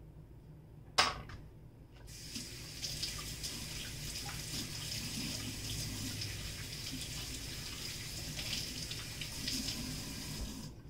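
Kitchen sink faucet running steadily while an orange bell pepper is rinsed under it; the water starts about two seconds in and is shut off just before the end. A sharp knock, the loudest sound, comes about a second in.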